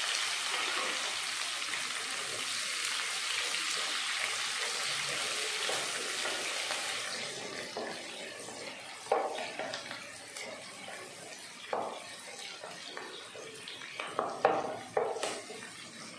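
Chopped onions sizzling in hot oil with a steady hiss, loudest at first and dying down after about seven seconds. A wooden spoon then scrapes against the pan several times as the onions are stirred.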